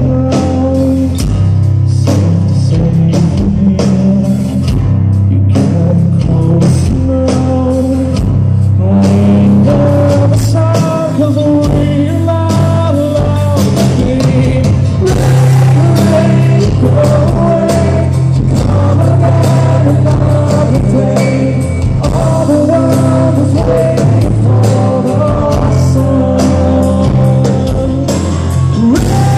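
Band playing an acoustic rock song live, with strummed acoustic guitars, drums and a man singing lead.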